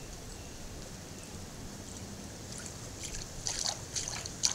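American white ibis wading through shallow swamp water. Its steps make a quick run of small splashes and sloshes in the last couple of seconds.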